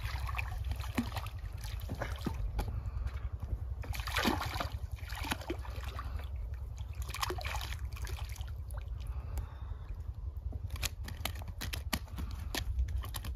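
A large hooked fish thrashing and splashing at the surface of shallow water as it is played on a fishing pole and drawn in to the bank, with several separate splashes. A few sharp ticks come near the end.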